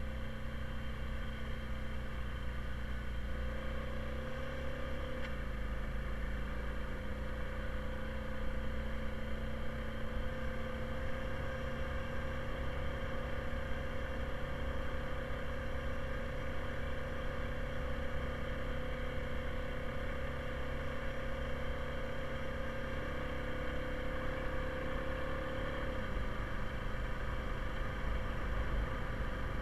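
2020 Honda Rubicon ATV's single-cylinder engine running steadily under way, with a low rumble underneath. The engine note drops a little about five seconds in and again near the end.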